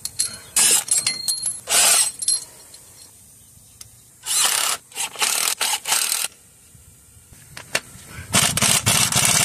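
Metal clinks and rattles of bolts and a puller being fitted to a crankshaft pulley. About eight seconds in, an impact wrench starts running continuously on the puller's center screw to draw the crankshaft pulley off.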